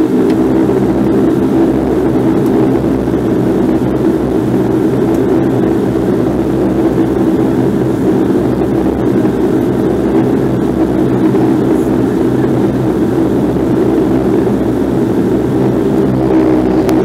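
Bombardier Q400's Pratt & Whitney PW150A turboprops running at high power, heard from inside the cabin as a loud, steady propeller drone with engine hum, as on a takeoff roll. The pitch of the drone shifts near the end.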